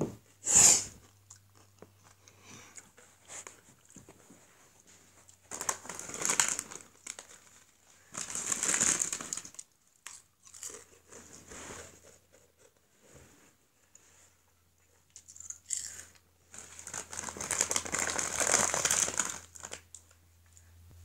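Crisp packet crinkling and rustling in several separate bursts, the longest and loudest near the end.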